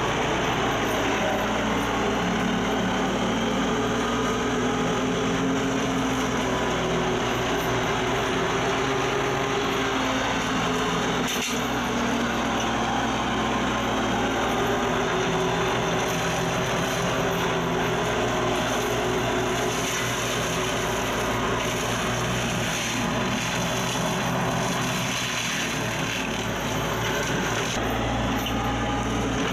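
Mini excavator's diesel engine running under load while its hydraulically driven Kusakarugon flail mower head spins and shreds tangled vines, bamboo and brush, a steady mechanical drone. A single sharp knock about eleven seconds in.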